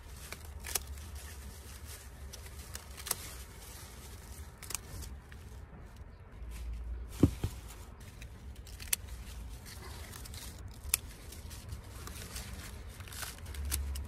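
Small garden scissors snipping off lettuce leaves: several sharp, separate snips spread out, the loudest about seven seconds in, with the crinkle of the leaves being handled, over a low steady rumble.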